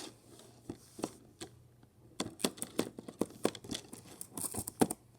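Giant slinky being played with, its coils clacking against each other in a series of sharp clicks: a few at first, then coming thick and fast from about two seconds in.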